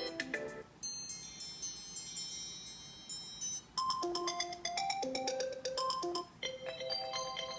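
iOS 7 ringtones previewed one after another on an iPad. The tail of one melody gives way to a high, shimmering tone of about three seconds, then a melody of short notes, then a new tune of held notes starting about a second before the end. Each is cut off abruptly as the next is chosen.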